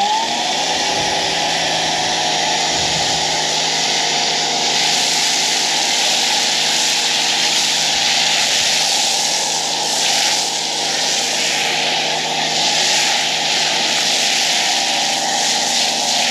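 EGO Power+ HPW3200 cordless pressure washer spinning up at the start, then running steadily: an electric motor and pump hum under a loud hiss of spray as the foam cannon blasts thick soap on its high setting.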